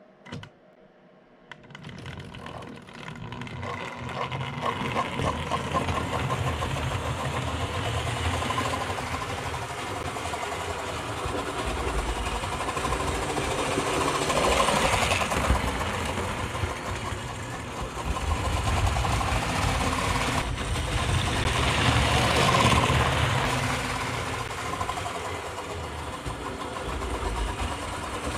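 Tri-ang Hornby Princess Royal OO gauge model steam locomotive and its coaches running on the track, a steady whirring and rattling of the motor and wheels. It starts up a couple of seconds in and grows louder twice as the train comes close.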